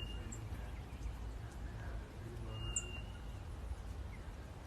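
Small bird giving a few faint, short high chirps, over a steady low background rumble.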